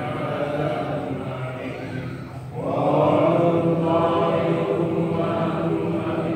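Men's voices chanting an Islamic prayer recitation together, sustained and pitched, with a brief pause about two and a half seconds in before a new, louder phrase begins.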